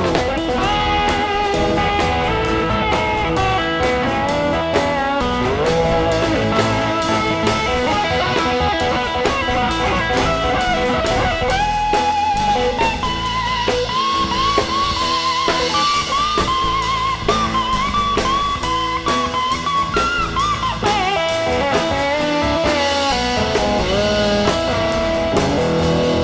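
Live rock band playing an instrumental break: an electric guitar plays a lead line with bent notes over bass and drum kit.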